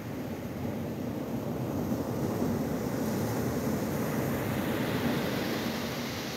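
Ocean surf: small waves breaking and washing up a sandy beach, a steady rushing that swells about two seconds in.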